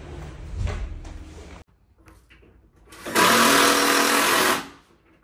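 Low rumbling and bumping as a wrapped bed base is carried up the stairs, cut off abruptly; then a small electric motor runs loud and steady for about a second and a half.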